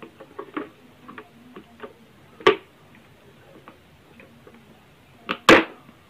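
Side-cutting pliers crushing the plastic package of a failed STR6059H switching power-supply IC on a washing-machine control board: light clicks as the jaws bite, a sharp crack about two and a half seconds in, and a louder double crack near the end as the IC splits apart.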